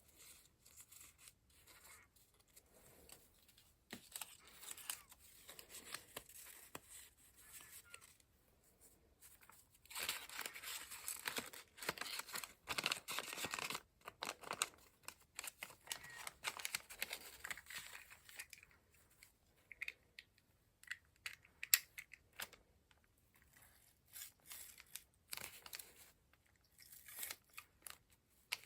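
Paper being worked by hand: torn and cut with scissors. There is a dense run of tearing and rustling about ten seconds in that lasts a few seconds, then scattered short snips and light taps.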